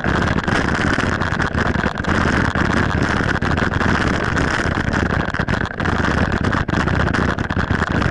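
Wind rushing over the microphone of a camera mounted on a mountain bike riding fast across grass, a loud steady rush broken by frequent knocks and rattles from bumps in the ground.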